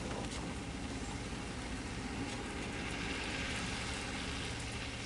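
A vehicle's engine running steadily, with a constant low hum under an even hiss.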